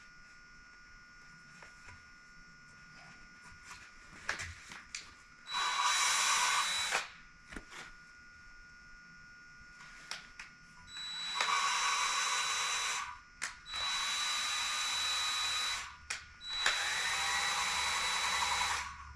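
Electric drill driving a valve-lapping tool, spinning a new valve against its seat in a Chevy 327 cylinder head with fine lapping compound, in four short runs of about two seconds each, with brief pauses between them.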